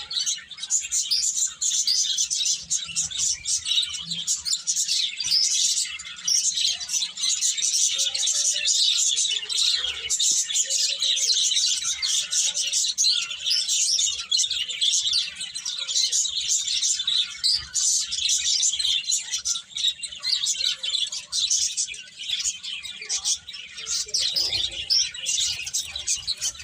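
A flock of small birds chirping and twittering rapidly and continuously, many short high chirps overlapping into a dense chorus.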